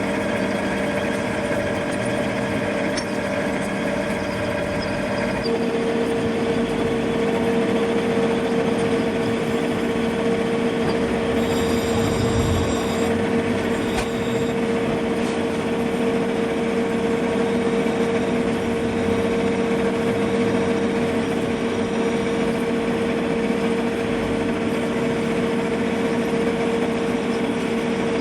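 Workshop machinery running steadily, a continuous motor hum whose pitch steps down about five seconds in and then holds.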